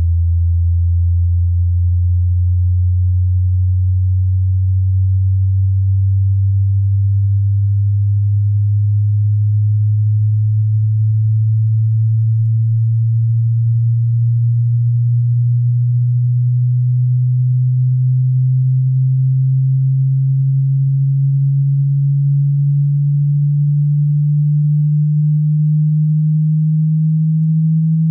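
A pure sine-wave test tone, steady in loudness, rising slowly and evenly in pitch from a deep 80 hertz: the low opening of a hearing-test frequency sweep.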